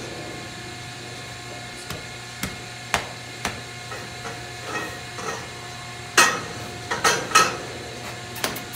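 Metal knocks and clanks from a steel cattle squeeze chute holding a cow: single knocks about every half second, then a louder cluster of clanks about six to seven and a half seconds in, over a steady low hum.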